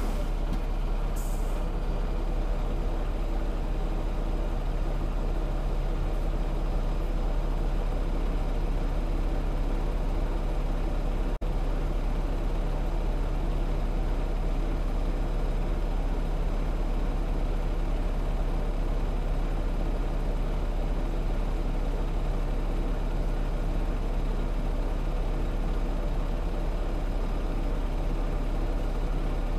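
Semi truck's diesel engine idling steadily, a low even hum heard from inside the cab, with a short air hiss about a second in.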